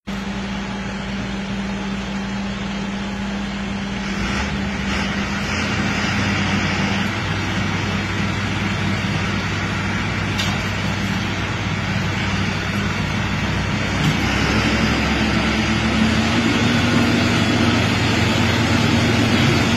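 Fendt tractors' diesel engines pulling hard against each other in a tractor tug-of-war. The engine note climbs and grows louder about four seconds in, and again around fourteen seconds.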